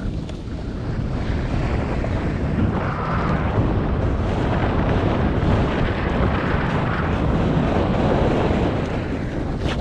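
Wind buffeting an action camera's microphone during a fast descent of a groomed ski slope, mixed with the hiss and scrape of edges on packed snow. A short sharp click near the end.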